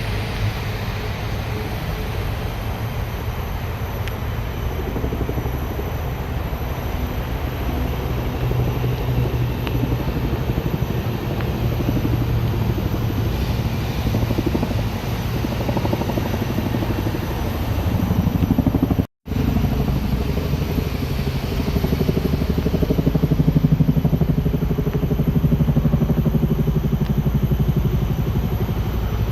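A motor engine running steadily, its low pitch wavering slightly. The sound cuts out for a moment about two-thirds of the way through, then carries on a little louder.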